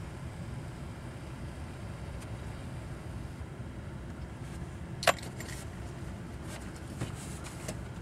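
Steady low rumble of the truck running with its heater going, with one sharp, loud click about five seconds in and a few fainter clicks near the end.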